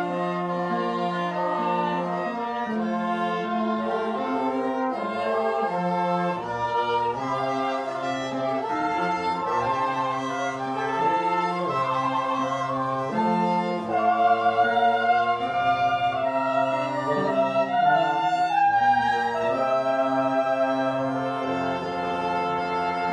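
Small chamber ensemble of bowed strings with bassoon and trombone playing a slow passage of sustained chords, changing every second or so and swelling louder a little past the middle.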